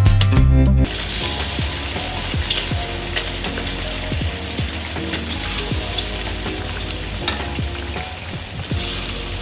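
Chicken wings frying in hot oil: a steady crackling sizzle with scattered sharp pops, starting about a second in as guitar music cuts off.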